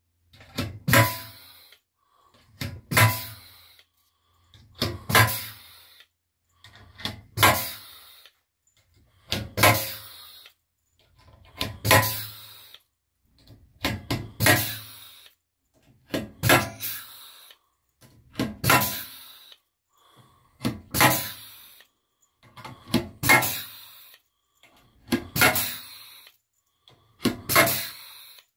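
Air-hydraulic pneumatic rivet gun setting blind rivets one after another, about one every two seconds. Each cycle is a sharp snap as the rivet mandrel breaks, with a short burst of air hiss, and near silence between them.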